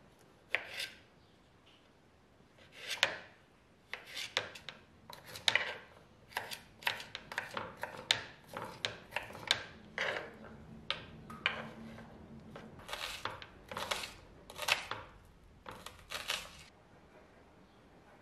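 Small kitchen knife cutting cherry tomatoes and asparagus on a wooden cutting board: sharp knocks of the blade against the board, a few at first, then about one to two a second.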